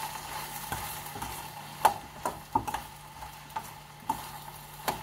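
Vegetables sizzling in a frying pan on the stove, with a handful of light, sharp clinks and knocks of a utensil against the cookware starting about two seconds in.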